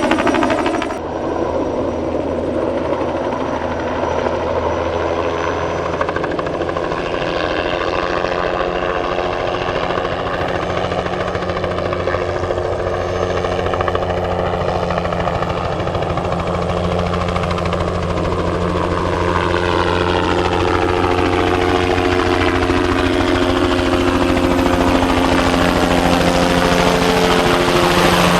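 Bell 206B-3 JetRanger III helicopter running continuously, its turboshaft and rotor sounding steadily. The tone sweeps slowly down and back up as it moves relative to the listener on its spraying runs, with a brief drop about a second in.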